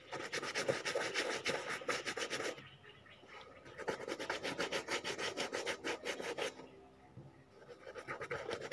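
Fingers rubbing leather oil briskly into a leather shoe's upper: rapid, even back-and-forth rubbing strokes in two bouts with a short pause between, stopping about two-thirds of the way through and starting again near the end.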